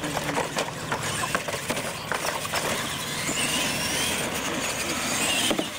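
Radio-controlled monster trucks racing across concrete: motors whining up and down, with the trucks clattering over wooden ramps.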